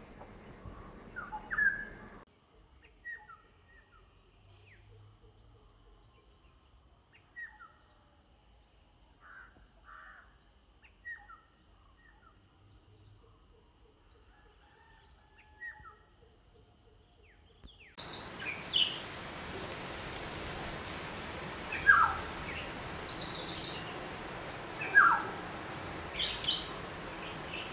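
Black-hooded oriole calling: a scattered series of short calls that slide downward in pitch, one every second or two. About two-thirds of the way through, the background hiss grows louder and a few louder calls stand out.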